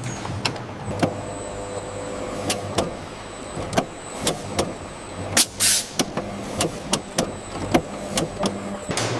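Automated chocolate production-line machinery running: a steady motor hum with irregular clicks and knocks, and a short burst of hiss about five and a half seconds in.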